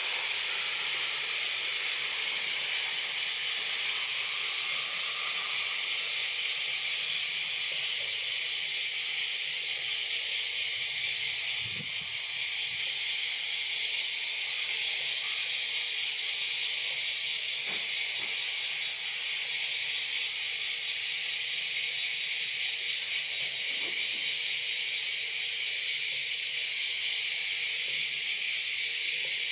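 A steady high-pitched hiss that holds level throughout, with no jet engine sound standing out.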